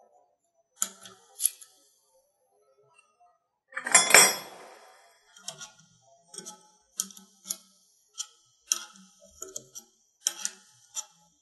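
A spanner clicking and tapping on the stainless-steel compression fitting of a control valve's pilot sensing line as the nut is tightened, in irregular sharp clicks. There is a louder rustling clatter about four seconds in.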